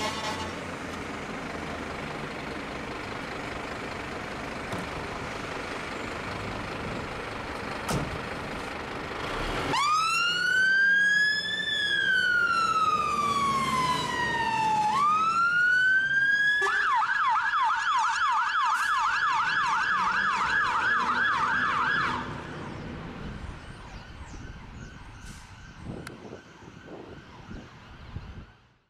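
A Scania fire engine's diesel engine runs as it pulls out. About ten seconds in, its electronic siren starts with a slow rising-and-falling wail, then switches to a fast yelp of about four cycles a second. The siren cuts off after about five seconds, and the sound fades as the engine drives away.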